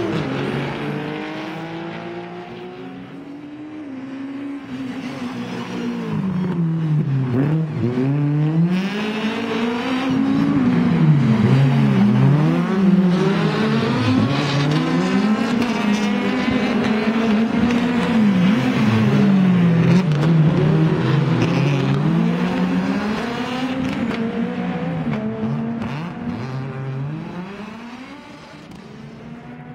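Rally car engine revving hard, its pitch repeatedly dipping and climbing again. It grows louder over the first several seconds, stays loud through the middle and fades near the end.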